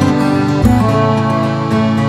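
Instrumental background music with guitar, sustained chords over a bass line, changing chord about half a second in.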